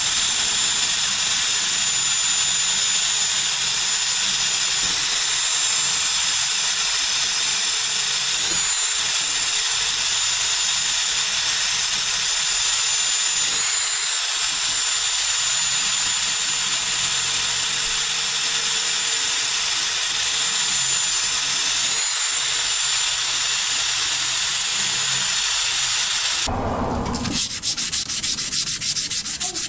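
Electric drill with a wire cup brush, its trigger locked on, scouring rust off a steel hatchet head: a steady, loud scratchy hiss over a thin motor whine. Near the end the drill stops and a quicker, rapid rasping of sandpaper on the metal takes over.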